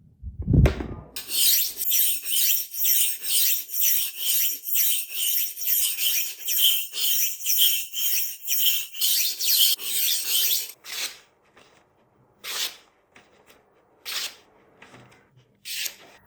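A steel knife blade rasping back and forth across a diamond sharpening stone at about two strokes a second, after a low thump at the start. Near the end the rhythm breaks into four separate strokes.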